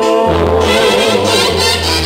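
Loud dance music with brass: trumpets and trombones play held notes over a pulsing bass line.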